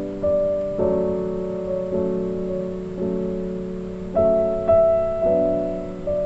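Background piano music: slow, gentle chords, a new one struck about once a second and left to fade.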